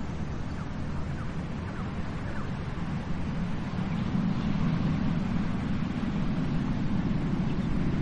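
Ocean surf washing in a low, steady rumble that swells a little about halfway through, with a few faint bird chirps in the first seconds.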